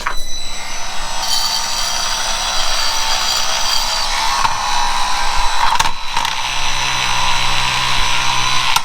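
Milwaukee M18 cordless shop vac running steadily, sucking up dirt and debris, with a constant rush of air and a motor whine; a deeper hum joins about six and a half seconds in.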